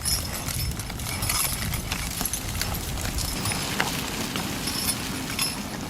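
Working horses hauling logs: hooves knocking on the ground, with harness and chain hardware jingling over a steady low rumble.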